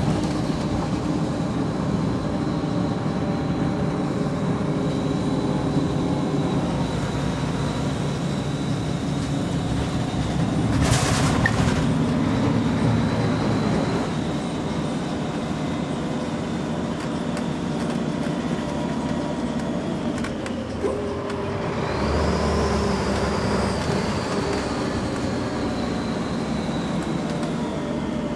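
Scania L94UB single-deck bus's nine-litre five-cylinder diesel and ZF automatic drivetrain heard from inside the saloon while driving, running steadily with a thin high whine. A short burst of hiss comes about a third of the way in, and near the two-thirds mark the sound dips, then picks up again as the whine rises and slowly falls away.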